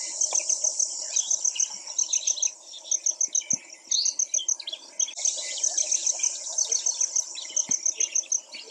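Birds chirping and calling, over a fast, high-pitched pulsing that comes in short repeated runs.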